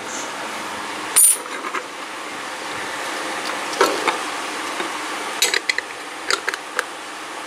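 Small metal clicks and taps as the steel blade and metal handle of an Ardell utility knife are handled and fitted back together on a wooden bench. The sharpest click comes about a second in, then a scatter of lighter ticks near the end, over a steady hiss.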